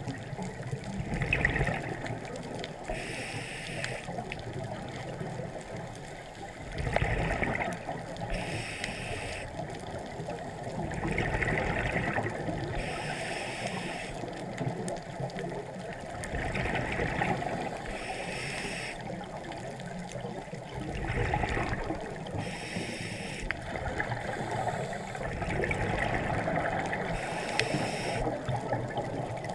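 Scuba diver breathing through a regulator underwater: a hissing inhale about every five seconds, each followed by a rushing burst of exhaled bubbles.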